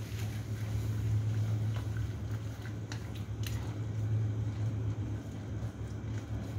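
A kitchen appliance runs with a steady low hum. A few light clicks come about three seconds in as wooden chopsticks knock against the non-stick wok while stirring vegetables.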